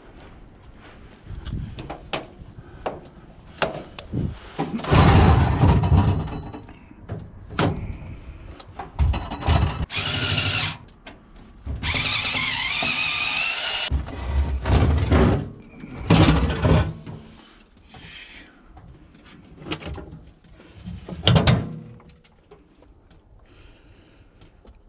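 Scrap metal being handled and worked apart: a run of irregular clunks and knocks, with a few seconds of high, wavering screech about halfway through.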